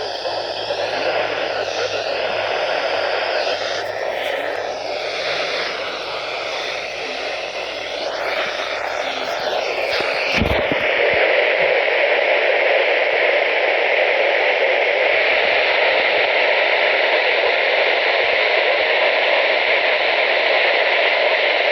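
Weather radio receiver hissing with static. For about the first ten seconds a weak, garbled signal warbles through the noise; then, after a click, only steady static remains, the sound of a frequency with no usable station.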